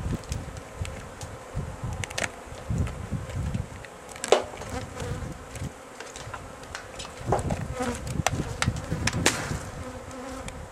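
A honeybee colony buzzing in a steady hum around an opened tree hive, with irregular low bumps and a few sharp ticks, the loudest about four seconds in.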